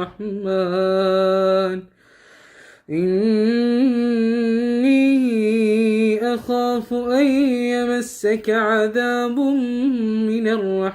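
A man reciting the Quran in melodic tajweed style, chanting the words "min ar-Rahman". He sings a short phrase, pauses for breath about two seconds in, then draws the phrase out in a long, ornamented melodic line that turns up and down in pitch.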